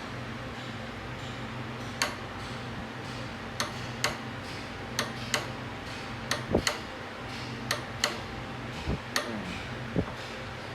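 Irregular sharp clicks and taps from hand tools working on a 3UR-FE engine during timing chain setup, about fifteen in all and spaced unevenly, over a steady low hum.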